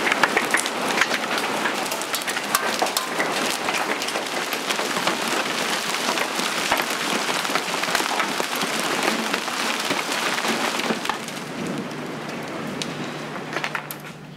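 Golf-ball-sized hail and heavy rain pelting down: a dense clatter of hailstone impacts over the hiss of rain, easing off a few seconds before the end.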